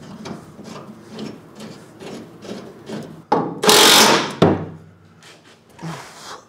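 Small knocks and rubbing from metal suspension parts being handled and worked on the bench. A little past halfway comes one louder noisy sound lasting about a second, ending in a sharp knock.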